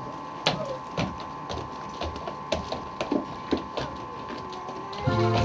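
Irregular knocks and thumps on a wooden stage floor, about two a second, over a steady hum. Music with sustained pitched notes starts near the end.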